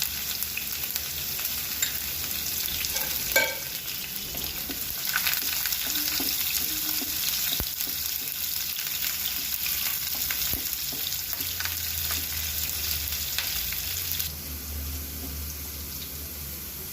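Onions and curry leaves sizzling in hot oil in a kadai while being stirred, with scattered clicks of the spatula against the pan and one sharp ringing metal knock about three seconds in. The sizzle drops noticeably about fourteen seconds in.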